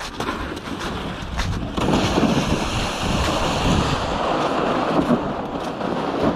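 Wind buffeting the microphone: a steady rushing noise that gets louder about two seconds in.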